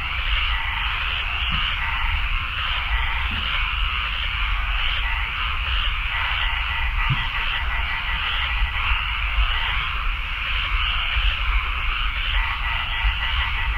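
Dense chorus of marsh frogs croaking, a steady, pulsing wall of calls, with a low rumble underneath.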